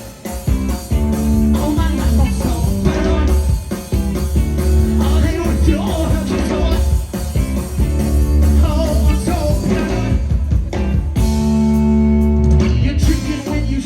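Live rock band playing: electric guitar, bass guitar and drums, with a held chord near the end.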